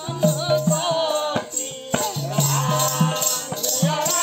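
Live folk song: a woman sings in long held lines over a two-headed barrel drum played by hand in a quick repeating beat, with a jingling rattle on top.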